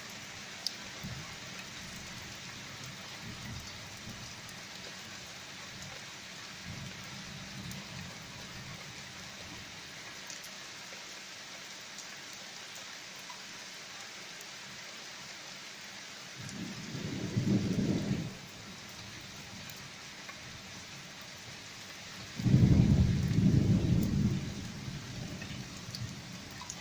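Steady rain falling during a thunderstorm, with two low rolls of thunder. The first comes a little past halfway through, and a louder, longer one follows about five seconds later.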